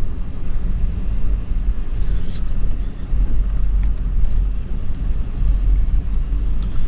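2013 Toyota 4Runner's 4.0-litre V6 and drivetrain running steadily while driving over sand, a constant low rumble. A short hiss about two seconds in.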